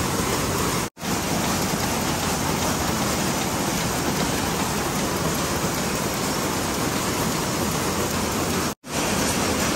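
Steady, dense din of jute mill machinery running, an even noise with no clear beat, that cuts out briefly twice: about a second in and near the end.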